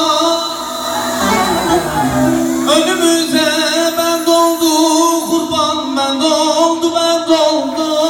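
Live Turkish folk band playing a slow instrumental passage of an uzun hava, with held, ornamented melody lines and a falling run about two seconds in.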